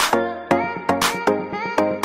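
Background music with a steady beat of short, sharply struck notes.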